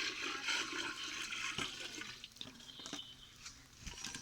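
Water being poured into a cooking pot, a rushing splash that lasts about two seconds and then tails off, followed by a few light knocks.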